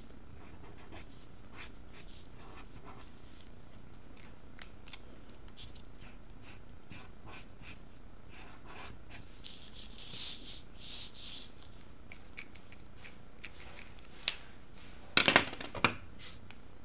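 Marker tip scratching over paper in short colouring strokes. A few sharp clicks come near the end.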